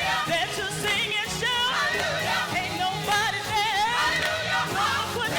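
Gospel worship music with singing: voices sliding through melodic runs over steady bass notes.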